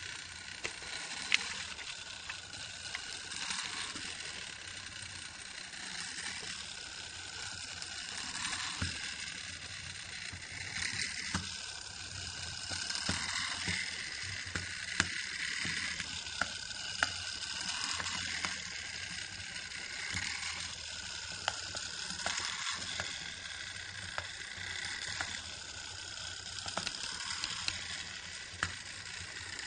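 Clockwork mechanism and chain drive of a c.1890 Roullet & Decamps walking leopard automaton running: a subtle mechanical purr that swells and fades about every two seconds as the legs step, with occasional sharp clicks.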